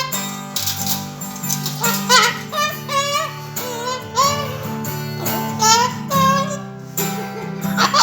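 Acoustic guitar strumming steady chords while a parrot sings along in short, wavering, high-pitched phrases.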